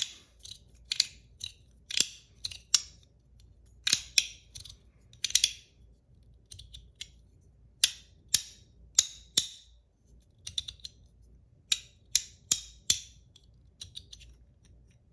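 PEI and aluminum Battle Master fidget clicking loudly as it is worked by hand: a run of sharp, separate clicks, often in quick pairs, coming irregularly with short pauses.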